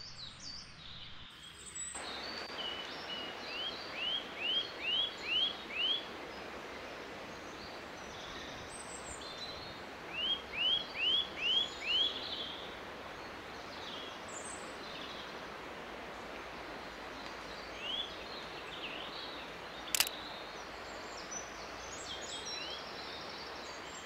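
Male pied flycatcher singing: two phrases of about five quick, rising notes each, then a few single notes, over steady woodland background. A single sharp click comes late on, louder than the song.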